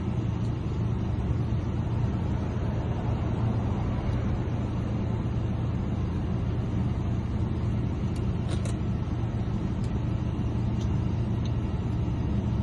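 Steady low rumble of an idling vehicle engine, with a few faint small clicks about eight to nine seconds in.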